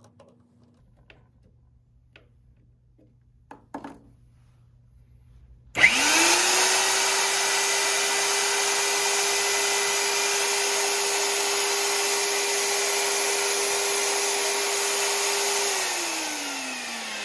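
Magnetic drill press motor switched on about six seconds in. It spins up within a moment to a steady whine and runs free with the annular cutter off the work for about ten seconds. Near the end it is switched off and winds down, its pitch falling.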